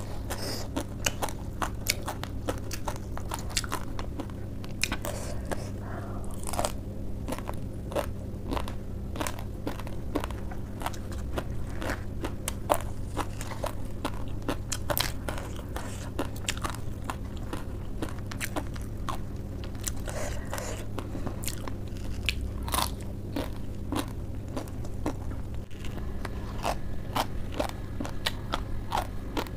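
Close-up eating: biting and chewing crisp raw lettuce and cabbage leaves with spicy instant noodles, many sharp crunches one after another, over a steady low hum.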